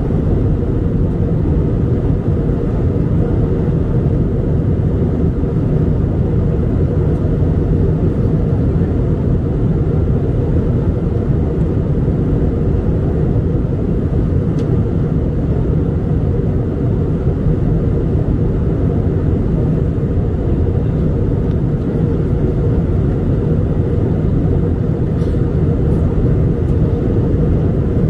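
Steady cabin noise of an Airbus A320 airliner in flight, heard from inside the passenger cabin: an even, low rush of airflow and engine noise that holds constant throughout.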